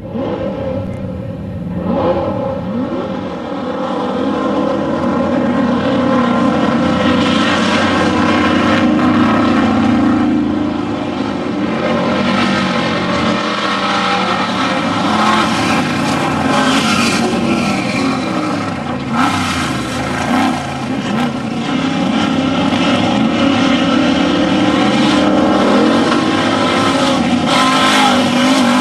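Off-road desert race vehicles' engines running hard and revving, the pitch rising and falling as they accelerate and back off.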